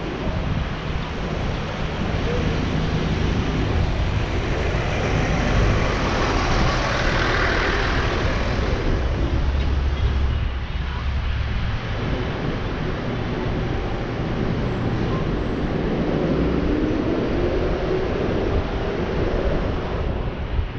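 Wind rushing over the microphone of a bicycle-mounted camera while riding, with city traffic noise around it: a steady, loud rush with a deep rumble.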